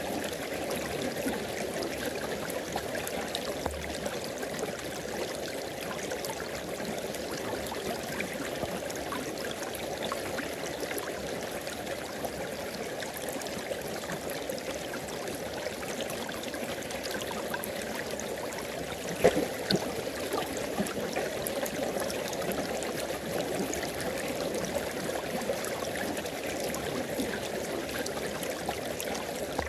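River water flowing and splashing over rocks, a steady rushing with a few sharper splashes about two-thirds of the way through.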